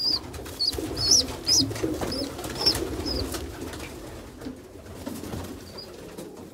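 Domestic pigeons cooing, with a run of short, high-pitched peeps over the first three seconds or so.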